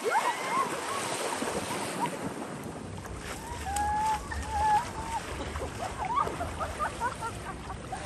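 Splashing of people running and wading into shallow sea water, loudest in the first couple of seconds, with short shrieks and calls of women's voices. Wind buffets the microphone from about three seconds in.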